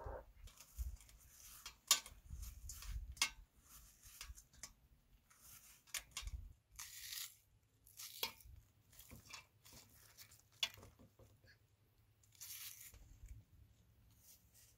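Raw onions being peeled and sliced by hand with a small knife: an irregular run of crisp cuts and the crackle of onion layers tearing, with a couple of longer rasping tears about seven and twelve seconds in.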